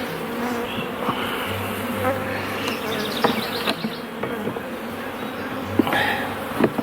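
Honeybees buzzing steadily around an open hive during a frame inspection, with a few sharp knocks near the end.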